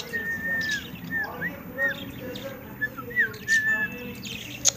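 Pet budgies chirping, with short clear whistled notes that arch up and down in pitch, several in a row.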